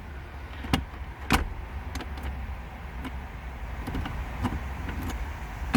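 A few sharp clicks and light knocks, about six spread unevenly, the loudest about a second and a half in: a key being tried in a newly fitted glove box lock and the latch clicking as it works. A low steady rumble runs underneath.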